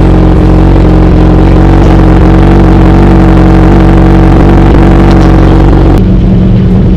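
Superbike engine idling steadily through an Austin Racing aftermarket slip-on exhaust, a loud, even note with no revs. About six seconds in it cuts abruptly to another sport bike idling through an SC-Project exhaust, with a duller, bassier note.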